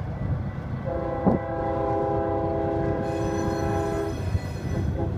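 Diesel locomotive air horn sounding one long chord of several notes for about three seconds, starting about a second in, over the low rumble and wheel noise of a passing freight train. A single sharp knock comes just after the horn starts.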